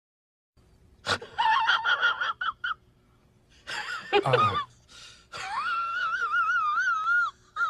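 A high-pitched, cartoonish vocal sound effect. It opens with a run of short wheezy, squeaky bursts, then a quick cry that drops in pitch, then a long warbling high wail that wavers up and down before cutting off near the end.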